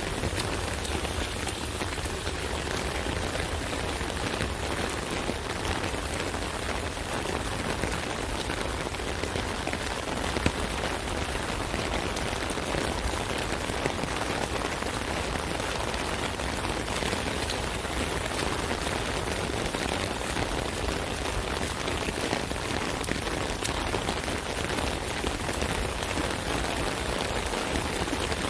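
Rain falling steadily on an umbrella: a dense, even patter of drops striking the canopy.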